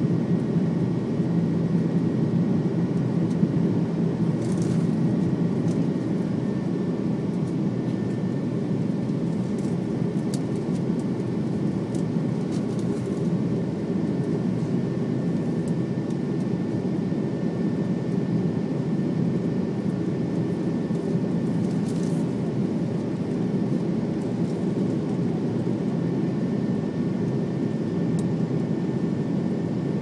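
Jet airliner cabin noise during the climb after takeoff: the engines and rushing air make a steady, deep roar, with a faint high steady whine above it.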